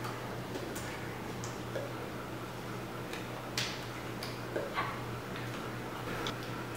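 Room tone with a steady low hum and irregular soft clicks and taps from hands and clothing during sign language, a few of the taps a little louder in the middle.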